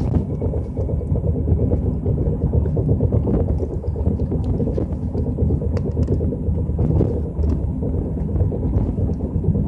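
Car cabin rumble while driving: steady road and engine noise, with faint scattered knocks that the occupants take for a loose tailpipe banging, not very loud now.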